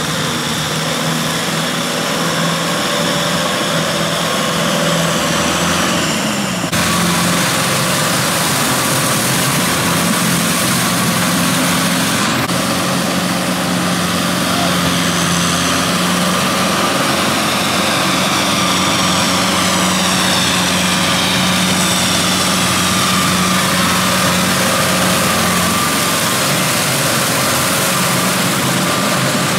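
Kubota tractor's diesel engine running steadily while pulling a rotary tiller through flooded paddy mud. The sound shifts abruptly twice, about a quarter and about halfway through.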